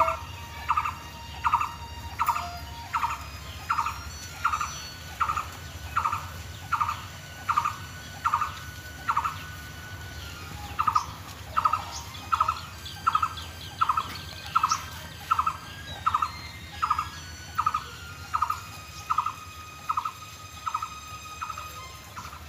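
Hand-milking a cow: jets of milk squirting into a metal pot in a steady rhythm of about one and a half strokes a second, each stroke a short squeaky hiss, pausing briefly about ten seconds in before going on.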